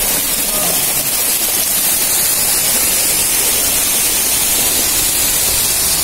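Steady, loud rush of falling water, a continuous hiss with no breaks.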